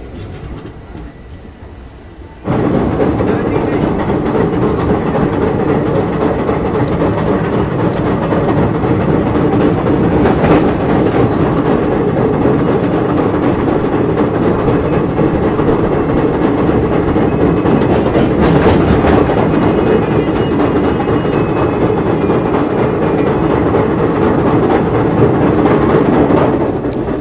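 Passenger train running at speed over a steel truss bridge: a loud, steady rumble and clatter of wheels and rails. It starts abruptly about two and a half seconds in, after a quieter stretch, and holds to near the end.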